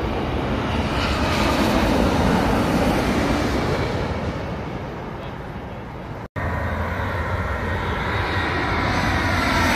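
Boeing 787 airliner on final approach passing low overhead, its jet engine noise fading away. After a sudden break about six seconds in, an Airbus A319 on approach comes in, its engine noise building with a faint whine.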